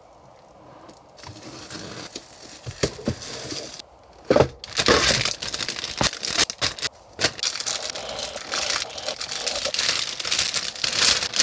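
Thin plastic wrapping crinkling and tearing as shrink-wrap is peeled off a model kit box and the clear plastic bags of kit runners are handled. It is quiet for about the first second, then the crinkling grows and is densest from about halfway through.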